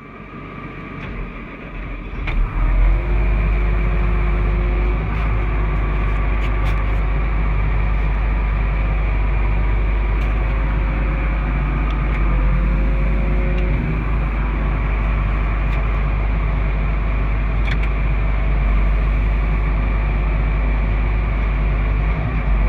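A large engine comes up over the first three seconds, then runs steadily with a deep rumble and faint steady tones above it.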